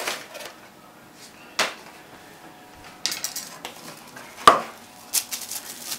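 Hands opening a product box and handling its packaging: a few sharp clicks and knocks, the loudest about four and a half seconds in, with bursts of light rattling and ticking between them.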